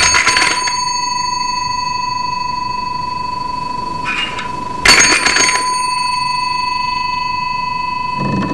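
Doorbell worked by a hanging bell pull, rung twice about five seconds apart. Each pull gives a bright metallic ring that hangs on as a steady, high, several-toned ringing, with a small jingle just before the second pull and a lower rattle near the end.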